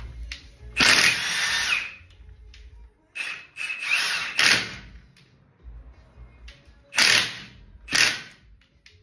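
Milwaukee cordless half-inch impact wrench hammering on a truck's wheel lug nuts in five bursts: a long one about a second in, two close together around four seconds, and two short ones near the end.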